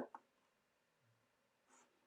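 Near silence, with a quick double click at the start and a soft brushing sound near the end: a computer mouse being clicked and moved.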